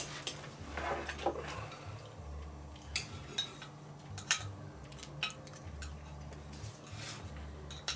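Knife and fork clinking and scraping on a ceramic plate while cutting a grilled pork steak: a scattering of short, sharp clicks, roughly one a second.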